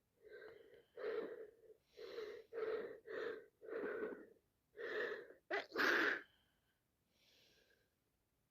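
A woman with sinusitis gives a run of short, catching breaths that build up to a loud sneeze about six seconds in, followed by one faint breath.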